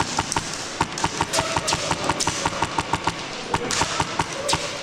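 Airsoft guns firing in close quarters inside a building: a continuous stream of sharp pops and cracks, several a second, from more than one gun.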